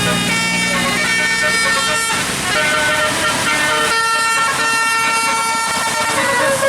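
Tourist bus's multi-tone telolet (basuri) horn playing a tune, held horn notes stepping up and down in pitch one after another.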